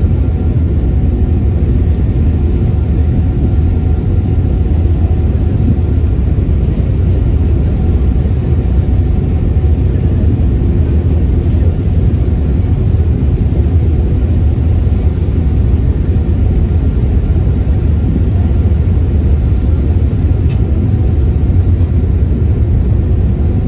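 Passenger ferry's engine running with a steady low rumble and a faint hum.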